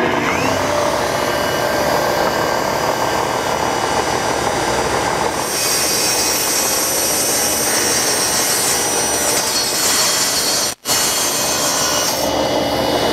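Table saw running with its blade tilted to 45 degrees, cutting a bevel along an oak board fed against the fence. The cutting noise turns brighter about five seconds in, and the sound breaks off for an instant about eleven seconds in.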